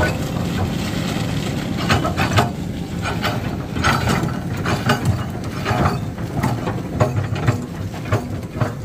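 A heavy vehicle engine running steadily, with irregular mechanical clanks and rattles over it, about one or two a second.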